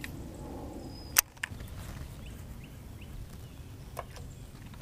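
Baitcasting rod and reel handled for a cast: one sharp click about a second in, then a few fainter ticks, over faint steady low background noise.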